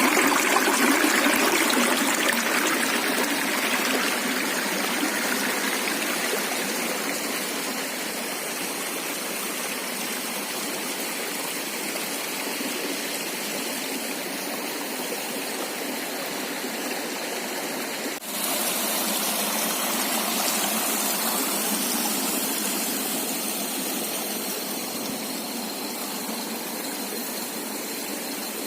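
River water flowing, a steady sound of running water, with a brief dropout about eighteen seconds in.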